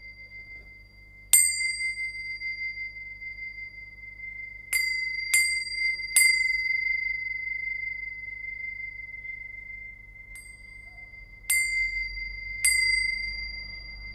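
Large pair of Tibetan tingsha cymbals struck together about seven times, the fifth strike faint; each strike is a bright clash that rings on as one long, clear, high tone, dying away slowly between strikes.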